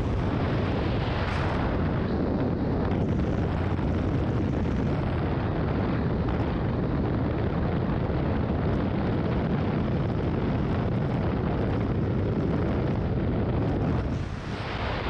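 Steady loud rush of airflow and propeller-engine noise from a single-engine high-wing plane in flight, heard through its open jump door, with wind buffeting the microphone. The noise dips briefly near the end.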